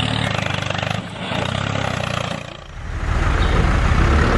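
Small engine of a homemade mini truck running with a rapid, even pulsing beat. It falls away briefly about a second in and again around two and a half seconds in, then comes back louder.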